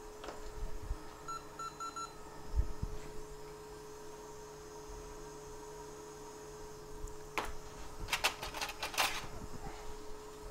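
Three quick electronic beeps from bench equipment, then a single sharp click and, near the end, a rapid cluster of clicks and taps from tools on the repair bench, over a steady electrical hum.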